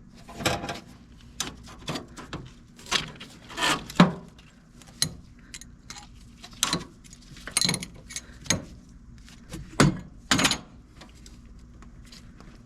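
Irregular metal scrapes and clicks, about a dozen, from hand tools working the remains of a drilled-out broken bolt out of its threaded hole, over a faint steady hum.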